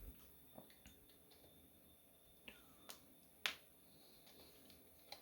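Near silence broken by a few short, sharp clicks, the loudest about three and a half seconds in, with a dull thump right at the start.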